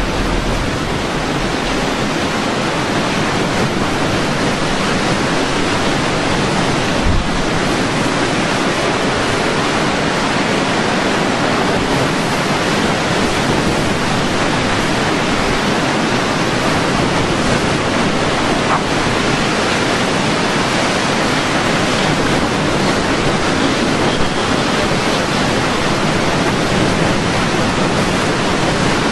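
Hurricane-force wind blowing steadily across the microphone as a loud, unbroken rush of noise, with one brief low thump about seven seconds in.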